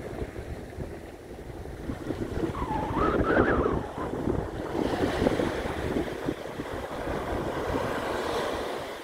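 Small waves breaking and washing up a sand-and-shingle beach, growing louder about two seconds in, with wind buffeting the microphone.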